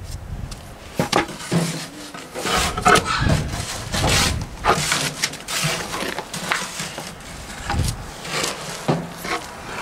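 Bluestone slab being set down and worked into a wet mortar bed: irregular knocks and scrapes of stone and tools against stone and mortar.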